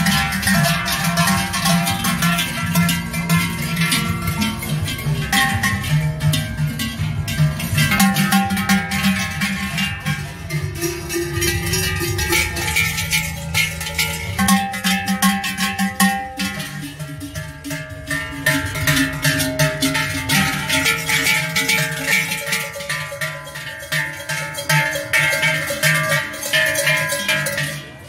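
Many large cowbells worn on the costumes of Krampus and Perchten figures clanging continuously as they walk, with bells of many different pitches ringing over one another.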